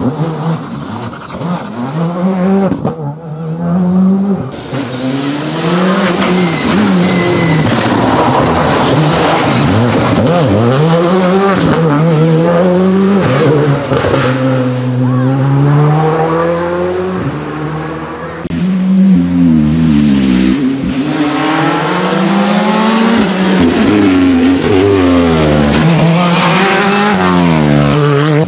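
Rally car engines at full race pace, one car after another, revving hard and dropping in pitch again and again as they shift gears and lift for corners.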